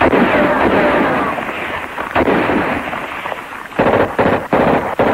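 Rifle gunfire: a loud burst of shots at the start, another shot about two seconds in, then a quick string of four shots near the end.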